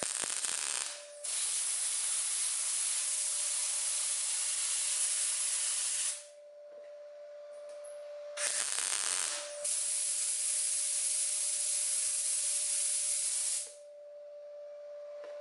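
MIG welder welding a steel wheel arch panel: the arc hisses in two runs, about five and four seconds long. Each run starts with a brief louder burst, and there are short pauses between the runs, with a faint steady whine beneath.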